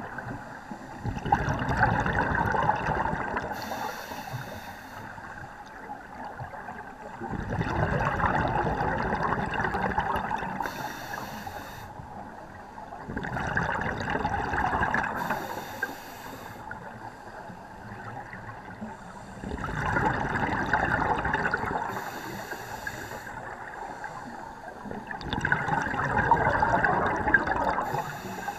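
Scuba breathing through a regulator underwater, about five breaths, one roughly every six seconds. Each breath is a loud rush of exhaled bubbles lasting two to three seconds, followed by a short, quieter hiss of the inhale through the demand valve.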